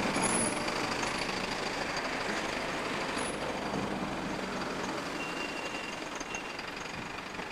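Pair of Class 08 diesel shunting locomotives running past. Their English Electric diesel engines make a steady engine note over rumbling noise that slowly fades.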